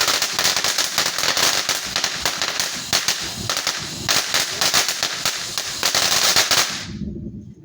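Firecrackers going off in a rapid, continuous string of sharp pops, which stops suddenly about seven seconds in.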